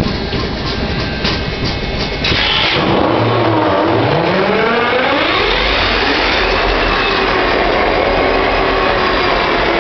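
WAMX 5009 diesel locomotive engine with a failing turbocharger, revving up. About two seconds in, the sound jumps louder. A whine dips and then climbs in pitch over several seconds, then settles into a steady tone.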